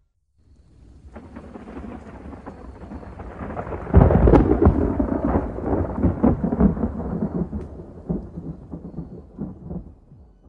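A low rolling rumble with crackles that builds from silence, breaks loudest about four seconds in, then crackles on and dies away.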